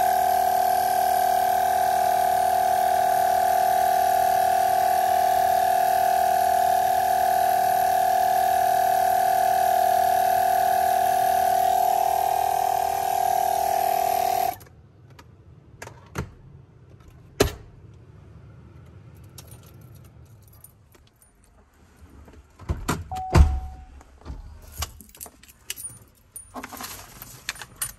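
Portable 12-volt car tire-inflator compressor running with a steady pitched hum, then switched off abruptly about halfway through. Scattered clicks and knocks of the unit being handled follow.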